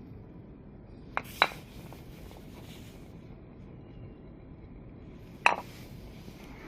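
Sharp knocks over a low steady hum: a quick pair about a second in, and one more with a brief rattle about five and a half seconds in. This is typical of a Volvo's drivetrain knocking on a gear change, the sign of worn engine and transmission mounts.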